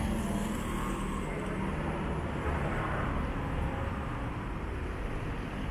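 Steady rumble of road traffic passing a street-side tram stop, with no distinct single event.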